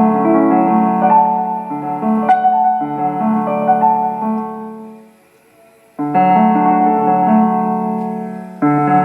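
Roland XPS-30 keyboard's built-in piano sound playing sustained chords through an external Ubon speaker. The chords die away about five seconds in, with a second's pause, and new chords are struck about six seconds in and again near the end.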